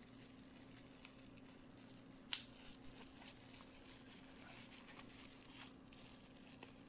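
Faint crinkling of plastic bubble wrap as a small underwater fishing camera is unwrapped by hand, with one sharp crackle a little over two seconds in.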